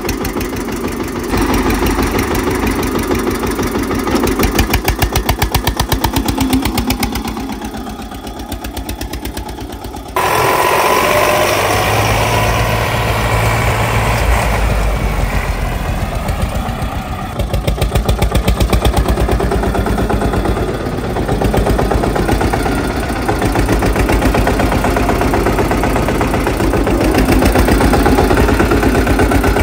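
Eicher 242 tractor's diesel engine idling with a steady, rapid chugging, running again after a hard start. The sound changes abruptly about ten seconds in.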